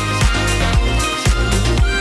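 Upbeat background music with a steady dance beat and a bass hit about every half second.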